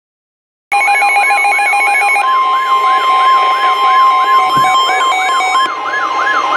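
Weather radio alert tones, starting abruptly about a second in: several electronic alarms sound at once, a warbling siren-like tone rising and falling about three times a second over rapid beeping. From about two seconds in, the steady 1050 Hz NOAA Weather Radio warning tone joins them, the signal that a warning message (here a severe thunderstorm warning) is about to be broadcast.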